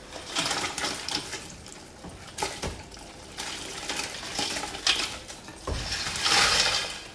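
Water splashing and sloshing with scattered knocks and clatter as live crawfish are handled in water, getting louder near the end.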